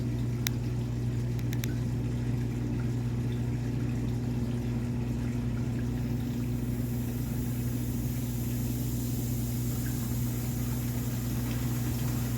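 Washing machine drain pump running with a steady hum, pushing water down a partly clogged standpipe drain. A hiss of rushing water grows from about halfway through.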